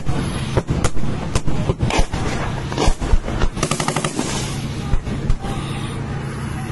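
Gunfire: scattered single shots and a short rapid burst of automatic fire about three and a half seconds in, over a steady low drone.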